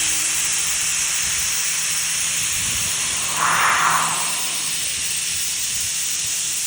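Ryobi 40V brushless cordless pressure washer spraying a jet of plain water onto a vehicle: a steady loud hiss over a faint motor hum, with a brief louder rush about three and a half seconds in. The spray cuts off suddenly at the end as the trigger is released.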